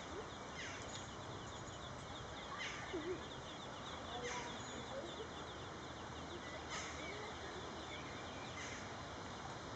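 Ducklings peeping: short, thin, high calls that slide down in pitch, one every second or two, over steady background noise.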